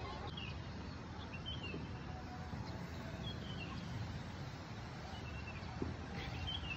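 Outdoor ambience: a few short, high bird chirps over a steady low rumble.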